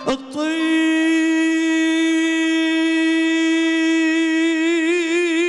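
A man's voice singing one long held note of an Arabic mawwal, steady at first and then wavering in a wide vibrato near the end.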